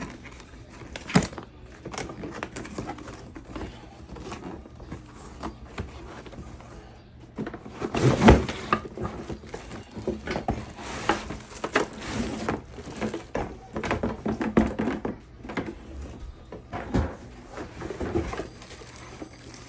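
Unpacking an electric griddle from its box: irregular knocks, thuds and rustling of cardboard and plastic packaging, with a loud burst of handling about eight seconds in.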